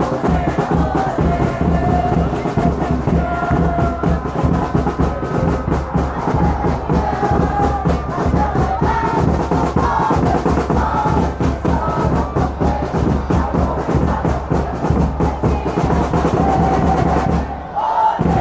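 Football supporters' drums beating fast under a crowd chanting and singing in the stands.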